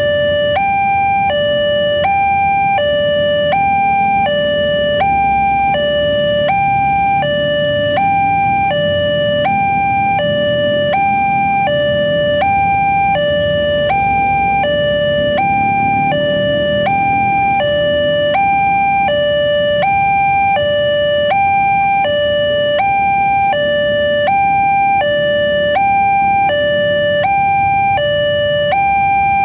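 Railway level-crossing warning alarm sounding its electronic two-tone signal: a high and a low tone alternating steadily, warning that a train is coming and the crossing is closed.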